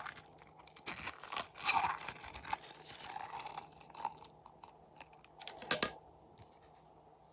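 Slime being kneaded and stretched by hand: irregular sticky crackles, pops and tearing sounds, with one louder snap late on.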